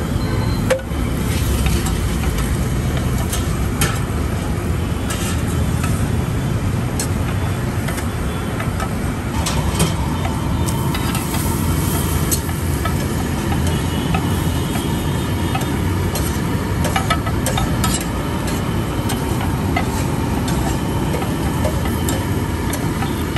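Stuffed paratha frying in butter on a large flat griddle, sizzling, with a steel spatula scraping and tapping on the griddle now and then. A steady rumble of road traffic runs underneath.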